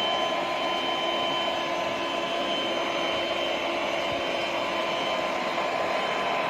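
Black+Decker Dustbuster cordless handheld vacuum running steadily: an even rush of air with a constant motor whine.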